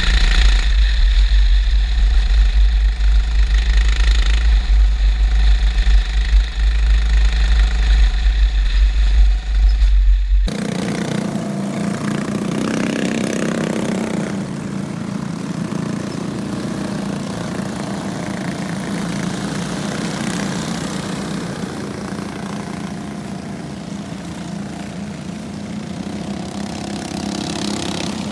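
Junior sprint car engine running at speed on a dirt track, heard onboard with a heavy low rumble. About ten seconds in it cuts abruptly to a quieter, steady drone of the cars' engines heard from trackside.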